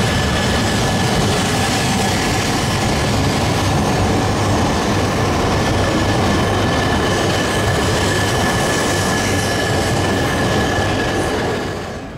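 Shinkansen bullet train running on elevated track: a steady rumble of wheels on rails with a thin, high, steady whine over it, fading away near the end.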